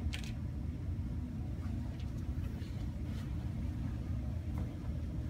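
Steady low rumble of room noise, with a short rustle right at the start and a few faint ticks.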